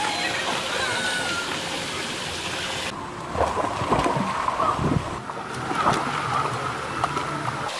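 Pool water splashing as children run and kick through it, a steady rush of spray. After about three seconds come several sharper splashes.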